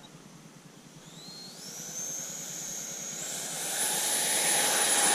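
Twin 64 mm electric ducted fans of a Freewing F-14 Tomcat RC jet spooling up for the takeoff run. A high whine starts about a second in and climbs in pitch over the next three seconds, over a rushing hiss that grows steadily louder toward the end.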